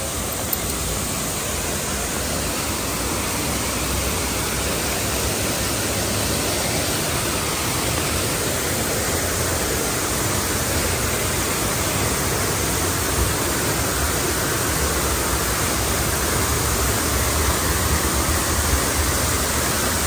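Waterfall rushing, a steady roar of falling water that grows a little louder partway through.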